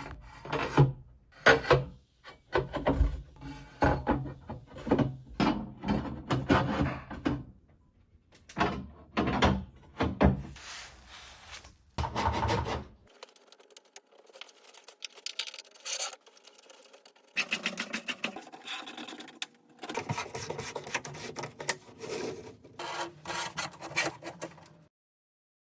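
Irregular scraping and rubbing with many knocks and clicks: hands-on assembly work on the wall display. It stops abruptly near the end.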